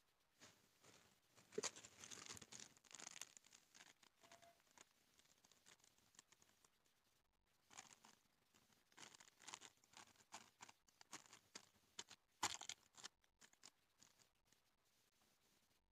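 Faint crinkling of a plastic and foil sheet pressed down by hand over the top of a wooden hive box. It comes in two spells of rustling, with the sharpest crackle about twelve seconds in.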